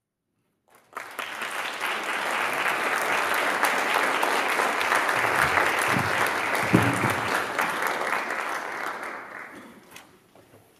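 Audience applauding, starting about a second in, holding steady, then dying away near the end. A brief low sound rises out of the clapping about two-thirds of the way through.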